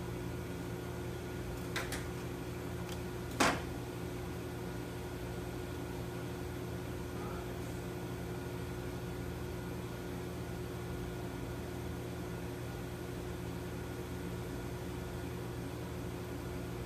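Steady mechanical hum of commercial kitchen equipment, with two sharp knocks about two and three and a half seconds in.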